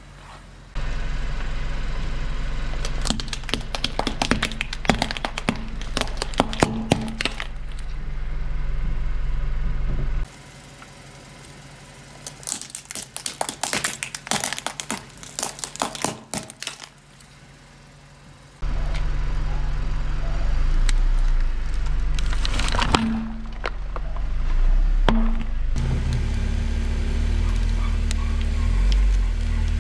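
A car tyre rolling slowly over small objects and crushing them: two spells of crackling and cracking from plastic and hard candy shells, each a few seconds long, over a steady low rumble.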